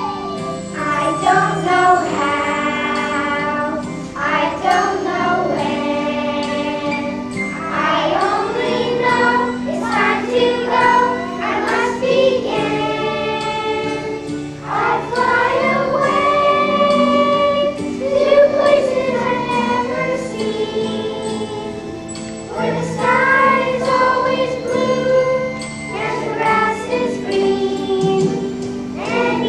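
A solo voice singing a song in long phrases over held accompaniment chords.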